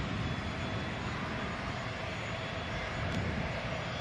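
Steady jet aircraft noise from a parked Airbus A320neo: an even rumble with a thin, steady high whine over it.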